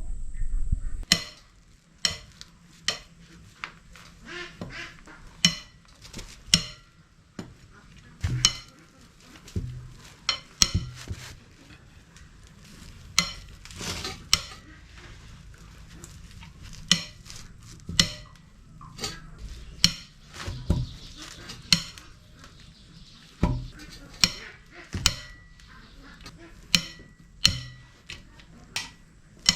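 Hand tools and metal engine parts clinking and knocking together as an Isuzu 4JJ1 diesel engine is taken apart. The impacts are sharp, irregular and metallic with a short ring, roughly one a second and of varying loudness.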